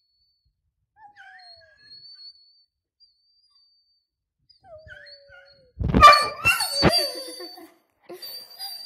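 A dog whining in soft, short falling whimpers, then breaking into a loud burst of yelping and howling about six seconds in.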